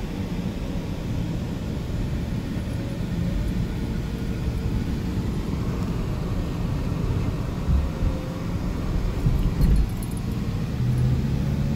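Car driving along a road, heard from inside the cabin: steady low engine and tyre noise, with a couple of low thumps from bumps about eight and nine and a half seconds in. A steady low hum comes in near the end.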